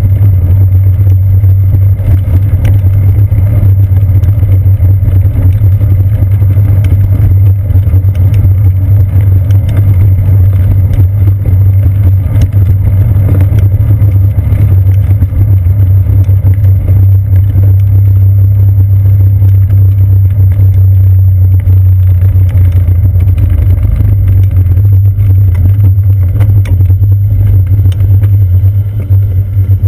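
Bicycle tyres rolling over boardwalk planks, picked up through a seat-post-mounted action camera as a loud, steady low rumble with small rattling clicks throughout.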